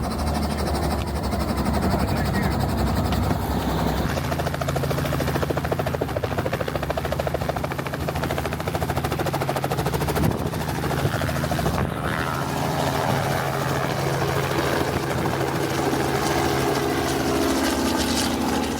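Helicopter running with a steady rotor chop over a low engine hum.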